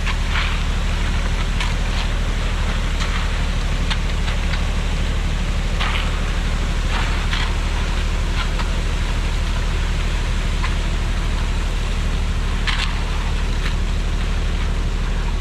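A heavy engine running steadily with a low rumble, with scattered crackles and scrapes over it.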